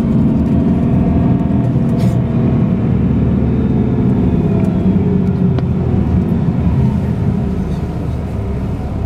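Steady engine hum and road noise inside a moving road vehicle as it drives, easing a little near the end.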